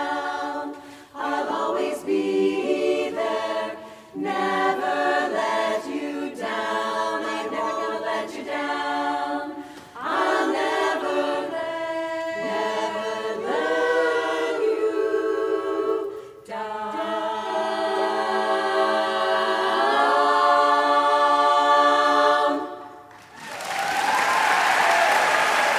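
Women's barbershop chorus singing a cappella in close harmony, ending on a long held chord that swells and then cuts off about three seconds before the end. Audience applause follows.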